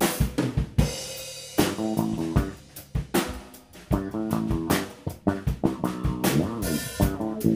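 Background band music: a drum kit keeping a steady beat with guitar and bass guitar.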